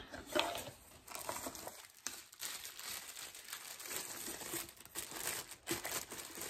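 A thin frosted plastic bag crinkling and rustling in the hands as a wearable breast pump is pulled out of it, a dense, irregular crackling.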